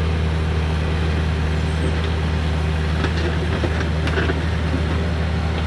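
Skid steer engine running steadily with a deep, even hum, with a few faint rattles and clanks from the machine about two to four seconds in.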